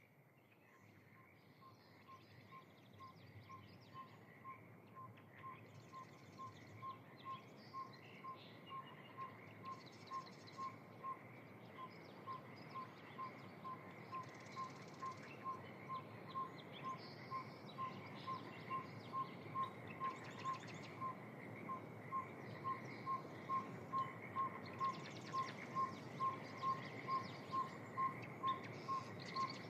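Spring wetland at dusk: birds chirping and trilling over a soft steady hiss, with a metronome-like string of single piping notes a little under two a second running throughout. It all fades in from near silence at the start.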